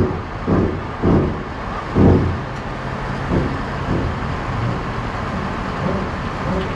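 Heavy diesel truck engines running steadily, with several short, loud low rumbles in the first two seconds and a couple of weaker ones after.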